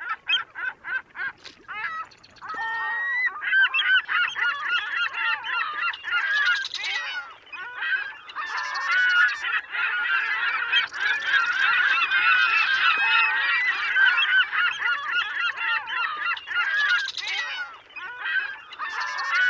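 A flock of geese honking, many calls overlapping: a few scattered honks at first, then a dense, steady chorus from about three seconds in.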